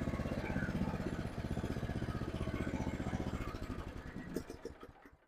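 Forest Master FM8DD wood chipper's four-stroke engine running steadily, then slowing and dying away to a stop near the end as it is shut off.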